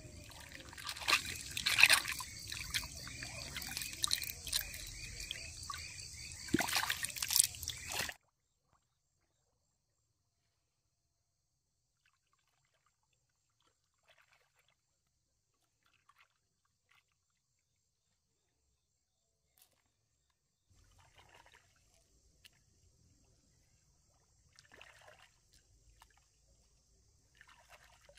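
Water sloshing and trickling, with a few sharp clicks in it. It cuts off abruptly about eight seconds in, and only faint scattered sounds come back near the end.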